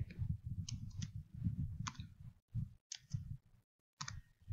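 Scattered clicks of a computer mouse and keyboard as text is edited in a design program, about six short clicks at uneven intervals over a faint low rumble.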